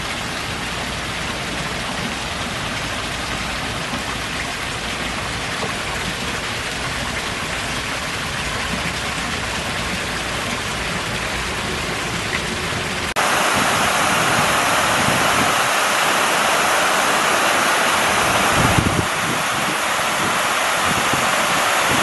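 Water falling and splashing steadily from a garden fountain, a spout pouring from a clay jug over rocks into a small pond. About thirteen seconds in it cuts to a louder, brighter rush of falling water from a larger waterfall.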